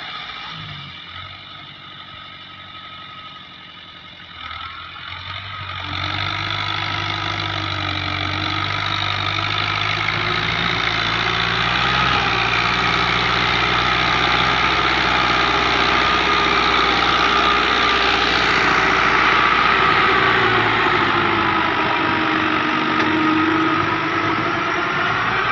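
Tractor diesel engine running steadily under load while powering a rotavator tilling the soil, fairly quiet at first, then much louder from about six seconds in as it comes close.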